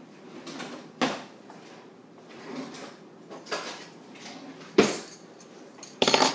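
Kitchen clatter: a few separate knocks and clinks of dishes and utensils being handled, the loudest about five seconds in, then a short rattle near the end.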